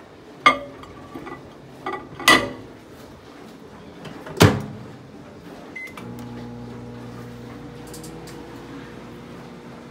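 Glass bowl clinking onto a microwave oven's glass turntable, the door shut with a loud knock about four and a half seconds in, a short keypad beep, then the microwave starting and running with a steady hum.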